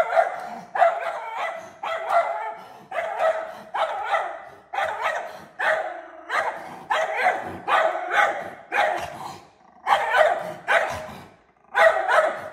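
Small schnauzer barking in a rapid, steady string of sharp barks, about one every two-thirds of a second, with a couple of short pauses near the end: alarm barking at a bear.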